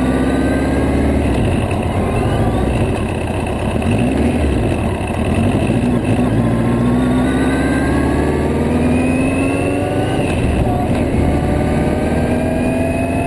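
Yamaha Diversion motorcycle's air-cooled inline-four engine pulling through the gears on the road. Its pitch rises in long sweeps and drops back at each gear change, about four and ten seconds in, with wind rushing over the microphone.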